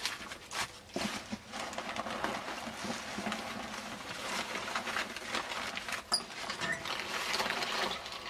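Paper rustling and crackling as loose sheets are handled and pushed through the slots of a metal paper-bank recycling container, with small knocks from the handling and a sharp click about six seconds in.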